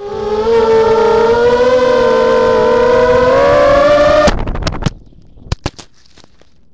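Blackout Mini H quadcopter's MN1806 brushless motors and propellers whining steadily in flight, pitch wavering slightly, heard from the onboard microphone. A little past four seconds the quad crashes: the whine stops abruptly among a quick series of knocks, and a couple of faint clicks follow as it comes to rest in the grass.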